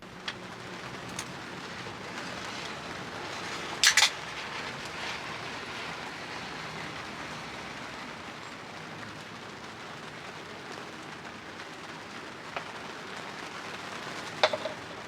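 Steady rain falling, with a few sharp drip-like taps; the loudest come about four seconds in and near the end.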